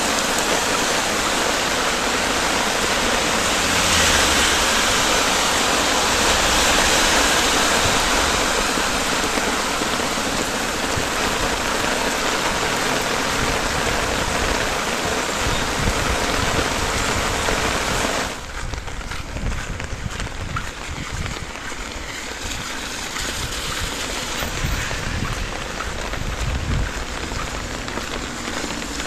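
Heavy rain pouring onto a wet, flooded street, a dense steady hiss. About eighteen seconds in it drops abruptly to a quieter, duller rain.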